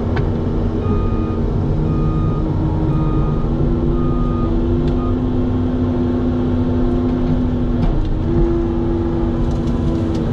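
Cat 310 excavator's diesel engine and hydraulics working under load while the machine lifts and twists a tall tree. The steady drone shifts pitch a little a few times. A faint short beep repeats through the first half.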